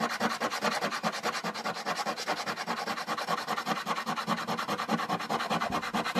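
A 2p coin scratching the scratch-off coating off a paper poster in rapid, even back-and-forth strokes.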